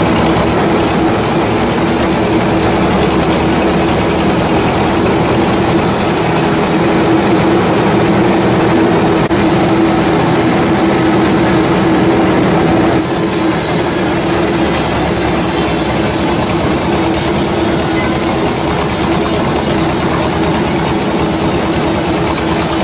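Sawmill saw running steadily through a teak log: a loud, even mechanical noise with a constant hum.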